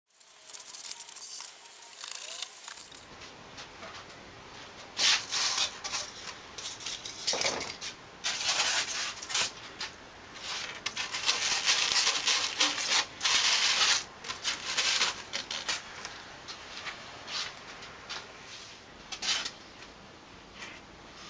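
Polystyrene foam pieces scraping and rubbing against each other and the workbench, in irregular rasping strokes that begin about three seconds in.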